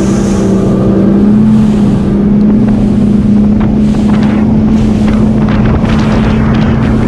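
Bass boat running at speed: the outboard motor drones steadily, its pitch rising slightly about a second in and then holding. Wind buffets the microphone and the hull hisses and slaps over the water.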